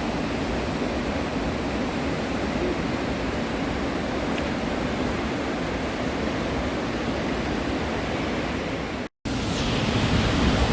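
Steady rush of flowing or falling water, an even noise heaviest in the low range, broken by a momentary gap near the end.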